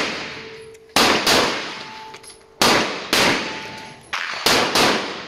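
Taurus handgun fired six times in three quick pairs, each shot's report dying away in a reverberant tail under the covered firing line.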